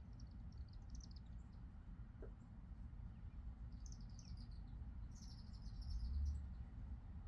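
Small songbirds chirping in quick high twittering bursts, three times, over a steady low background rumble. There is a brief low bump near the end.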